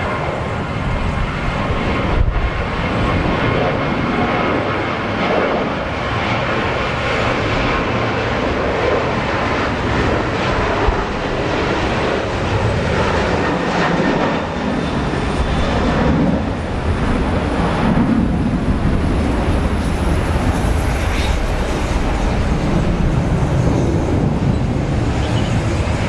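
Jet airliner engines running, with a thin high whine that rises slowly in pitch, under strong gusting typhoon wind buffeting the microphone.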